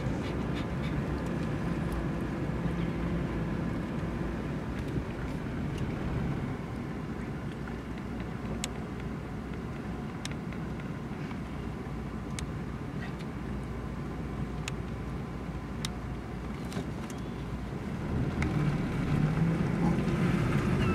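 A car running, heard from inside the cabin: a steady low rumble that grows louder near the end, with a few faint ticks.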